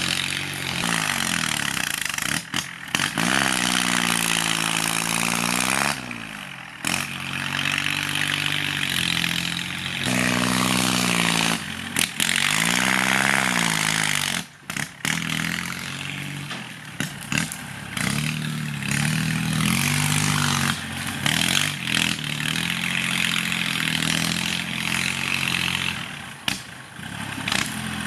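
Kubota L3608 tractor's three-cylinder diesel engine, through a loud aftermarket racing exhaust, working hard as it pushes soil. The engine note rises and falls several times, with a few brief sharp drops.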